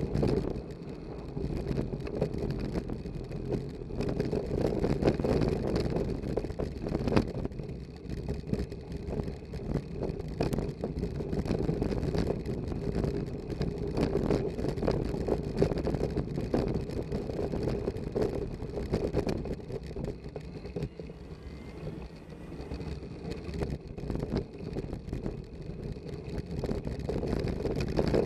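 Bicycle riding over cobblestones, heard through a Contour Roam action camera on an improvised Jessop/Minoura handlebar mount: a continuous rumble with a dense rattle of clicks as the camera and mount shake on the stones.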